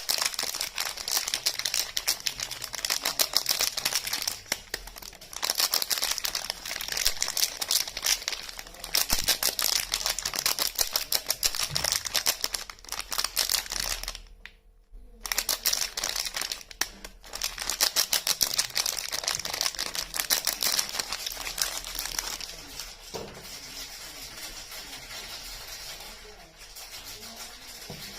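Soap-bar packaging crinkling and rustling close up as the bars are unwrapped: a dense run of crackles that stops briefly about halfway through and turns softer and more even towards the end.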